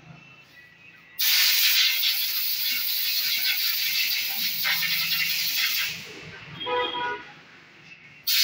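A compressed-air blow gun hissing loudly as a small motorcycle part is blown clean. One blast starts about a second in and lasts about five seconds, a brief pitched squeal comes near the seven-second mark, and a second blast starts just before the end.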